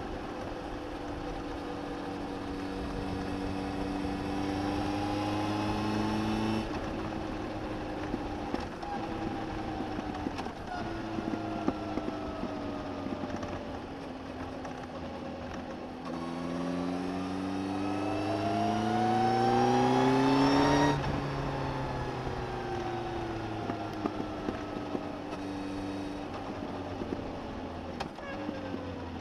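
Suzuki GSX1250FA's inline-four engine pulling with rising pitch, shutting off suddenly and winding down, then accelerating hard to its loudest near the middle before the throttle closes and the revs fall away. Heard through a recorder mounted under the seat.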